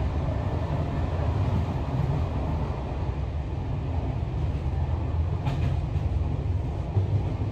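Passenger train running on the rails: a steady low rumble of wheels and carriage, with a faint click about five and a half seconds in.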